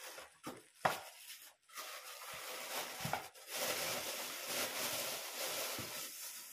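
Clear plastic wrapping crinkling and rustling as a wrapped mixer part is handled inside its bag. There is a sharp tap about a second in, and the crinkling grows denser about halfway through.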